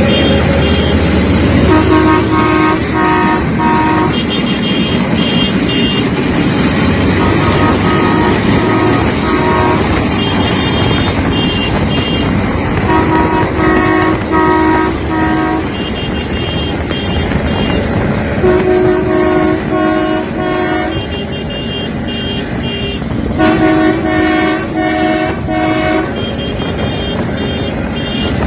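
Train horn sounding in quick runs of four short toots, repeated every couple of seconds with the pitch shifting from run to run, a crow-like cawing call. Underneath runs the steady rumble of the moving train.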